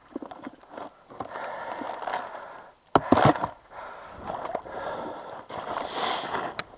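Rustling and scraping of gear being handled, with one sharp knock about three seconds in.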